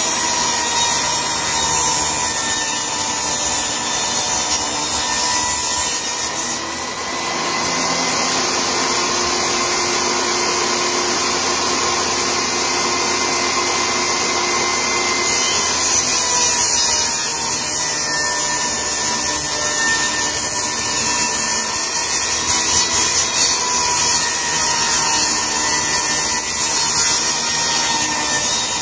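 Portable table saw running with a steady motor whine while its blade cuts through pieces of cedar; the cutting hiss is strongest from about six to fifteen seconds in.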